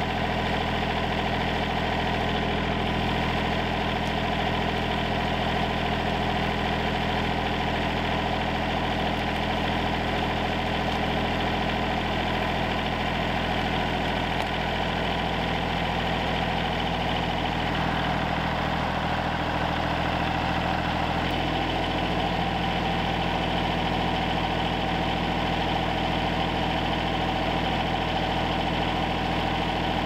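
Kubota L3901 compact tractor's three-cylinder diesel engine idling steadily.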